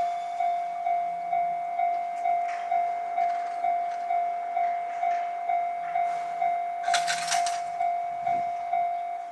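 Japanese level-crossing warning bell: an electronic single-tone 'kan-kan' alarm ringing evenly about twice a second. A brief cluster of sharp clatter sounds about seven seconds in.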